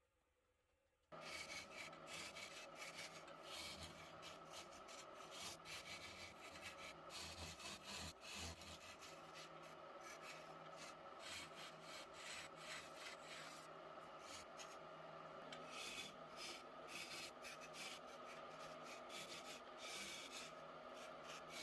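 Wood lathe running with the spinning wooden pillar blank being worked by hand: a steady hum under a continuous scratchy noise, starting abruptly about a second in.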